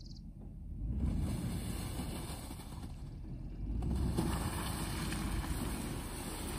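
Lexus LX470's V8 engine running at low speed as the SUV crawls through slushy snow, its tires churning in the snow, getting louder about a second in and again near four seconds as it comes up close.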